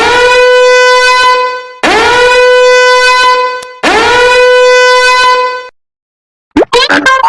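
A horn blast sound effect played three times in a row: each blast slides up into one steady, buzzy note and holds for nearly two seconds. About six and a half seconds in, a quick jumble of short cartoonish sound effects begins.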